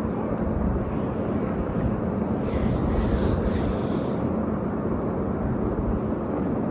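Cartoon stomach growl: a long, continuous low rumble, with a short hiss about halfway through.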